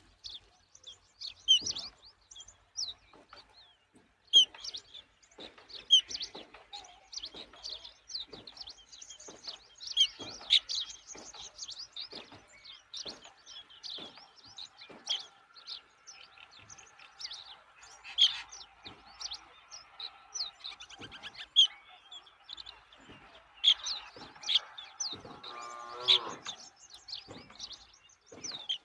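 Birds chirping in many short, sharp, repeated notes, with a steadier lower drawn-out sound in the background through the second half that ends in a longer call near the end.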